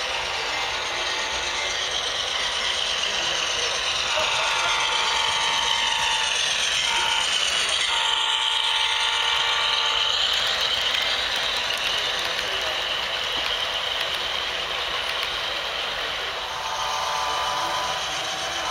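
HO-scale model freight train running past on the track, a steady mechanical rattle of wheels and drive. A sound-equipped diesel locomotive's horn blows over it: long, short, then long near the middle, and again near the end.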